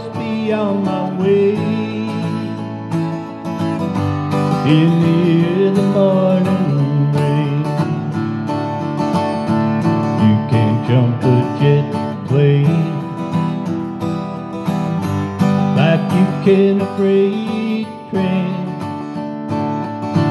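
Orangewood Echo acoustic guitar strummed steadily, with a man singing over it into the microphone.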